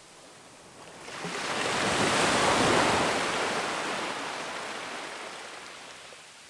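A sea wave breaking on a sandy beach: the surf swells up about a second in, peaks, then washes out and fades.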